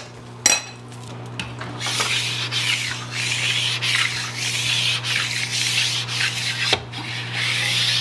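A utensil scraping and pushing food across a hot cooking surface in irregular strokes, with a sharp knock about half a second in. A steady low hum runs underneath.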